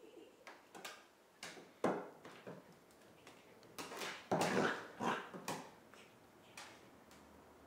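Pembroke Welsh Corgi puppy making a series of short, sudden dog sounds while play-wrestling, the loudest about two seconds in and a louder cluster about four and a half seconds in.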